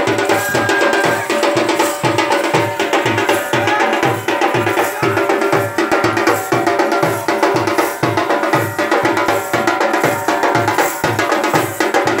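Procession drumming: a deep drum beating steadily about three times a second under fast, sharp higher drum strokes, with some steady tones in the mix.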